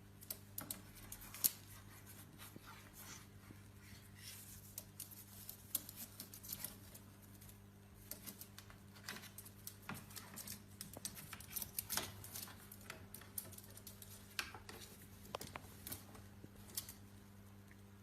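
Parrot's beak nibbling and tearing at something, giving faint, irregular clicks and crackles over a steady low electrical hum.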